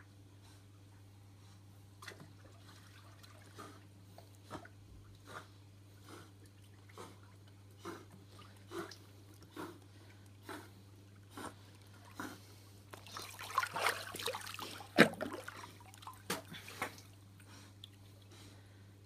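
Pool water splashing as a cattle dog swims, with soft splashes about once a second, then a burst of louder splashing and one sharp splash about three-quarters of the way through. A steady low hum runs underneath.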